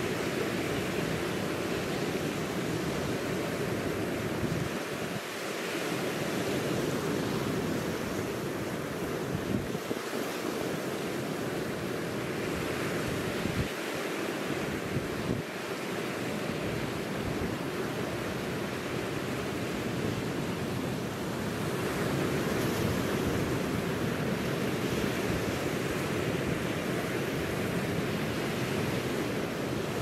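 Sea waves breaking and washing in over a rocky shore of boulders and rounded cobbles: a steady wash of surf that swells and eases. Wind rumbles on the microphone, dropping away and gusting back every few seconds.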